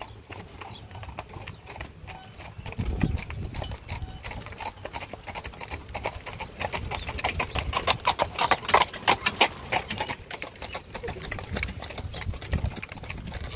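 Horse's hooves clip-clopping on a dirt road as it pulls a carriage: a quick, steady run of hoof strikes, loudest a little past the middle.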